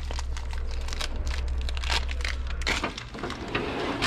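Plastic packaging crinkling and tearing as steering-neck bearing cups are unwrapped by hand, over a low steady hum. Right at the end comes one sharp, loud clunk, which fits a steel tool-chest drawer being pulled open.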